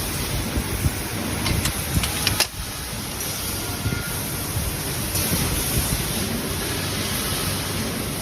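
Automatic laser welding machine running in a workshop: a steady hissing machine noise with a few sharp clicks about two seconds in.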